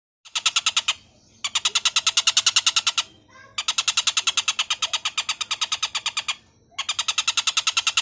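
Oriental dollarbird giving its harsh, rasping chatter: fast runs of about a dozen rough notes a second, broken by three short pauses.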